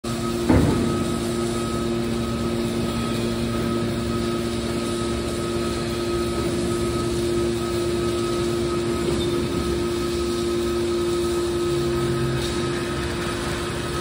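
Hydraulic scrap metal baler's power pack running steadily, a motor-and-pump hum with a couple of steady tones, as its cylinders swing the press lid shut. A sharp clank about half a second in.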